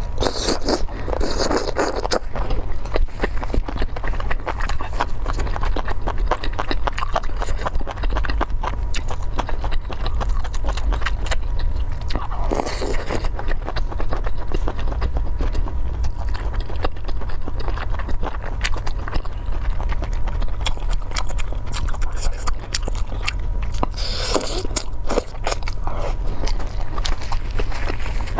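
Close-miked eating sounds: a person chewing and biting food, with dense wet clicks from the mouth. Three louder stretches stand out, one near the start, one about 12 seconds in and one about 24 seconds in, over a steady low hum.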